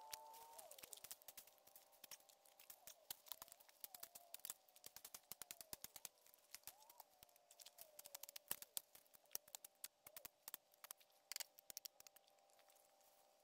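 Faint crackling and snapping of brush and twigs underfoot as a hiker pushes through dense undergrowth, the clicks thinning out and growing fainter as he moves away.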